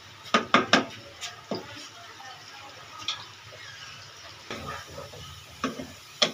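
Wooden spatula stirring sliced onions frying in ghee in a non-stick kadai: scraping and sharp knocks against the pan, several close together in the first second and a few more later, over a low sizzle.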